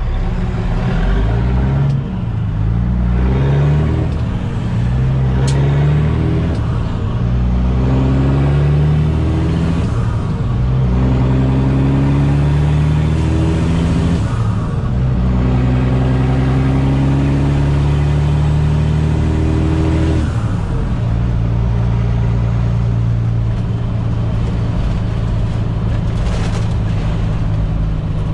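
Caterpillar C15 diesel engine of a Kenworth semi truck pulling away and working up through the gears. The engine note climbs in pitch again and again, each climb cut off by a gear shift, and from about twenty seconds in it runs at a steady pitch at cruising speed.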